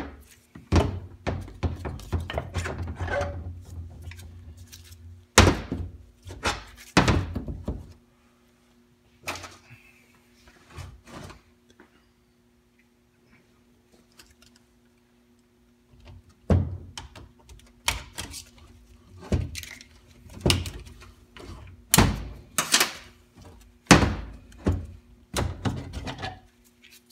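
Internal parts of a 4L80E automatic transmission being pulled out of the case and set down on a bench: repeated metal clunks and knocks, with a stretch of scraping near the start and a pause in the middle. A steady low hum runs underneath.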